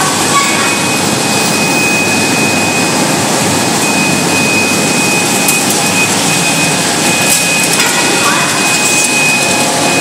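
Vegetable and fruit bubble washing machine running: a steady, loud mechanical noise with a thin high whine running through it.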